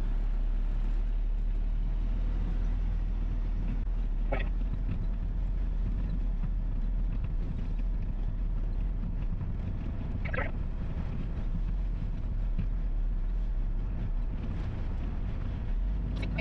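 Triaxle dump truck's diesel engine running with a steady low rumble and road noise, heard from inside the cab while driving. Two brief high squeaks come about four and ten seconds in.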